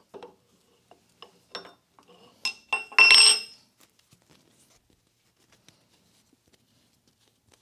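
Homemade steel pin spanners clinking against the threaded ring on the spindle end of a Cincinnati tool and cutter grinder head as it is broken loose, with a loud ringing metal clank about three seconds in. After that only faint small ticks as the ring is turned off by hand.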